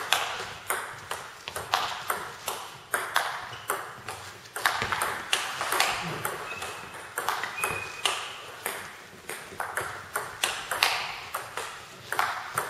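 Table tennis rally: the ball clicking off the table and the bats in quick succession, one bat faced with Nittaku Monophonic pimpled rubber, each hit echoing in the sports hall.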